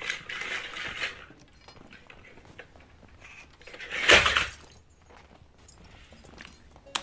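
A small toy dinosaur moving across a wooden floor, with faint clicks and rustling. A single sudden sharp crunch about four seconds in is the loudest sound.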